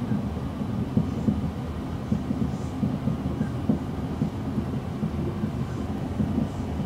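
Passenger train running, heard from inside the carriage: a steady low rumble with frequent short knocks and rattles.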